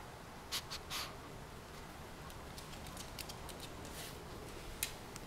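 Faint scattered clicks and rustles of movement close to the microphone, with a few sharper clicks about half a second to a second in and softer ticks after.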